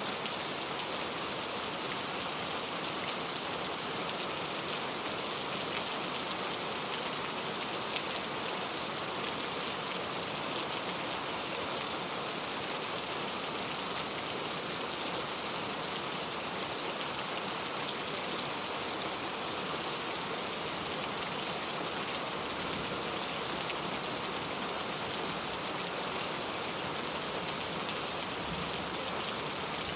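Steady rain falling and pattering on surfaces, an even hiss of many drops with no letup.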